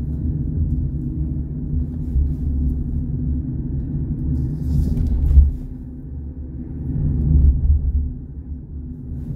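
Car engine and road rumble heard inside the cabin while driving slowly, steady and low, swelling briefly about five seconds in and again near the end.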